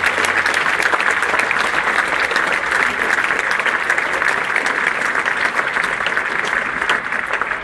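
A crowd applauding: many hands clapping together in a steady, dense patter, greeting the announced winning team.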